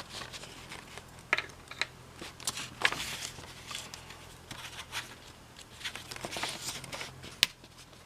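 Irregular small clicks and brief rustles of hands handling a small electromechanical relay and test leads on a bench, with one sharper click near the end, over a faint steady hum.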